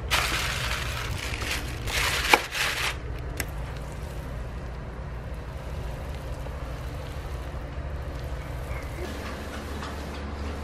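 A paint roller loaded with wet paint, rolled through the tray and over the wall: a sticky crackling hiss. It is strongest for the first three seconds, with a sharp click about two seconds in, then fainter over a steady low hum.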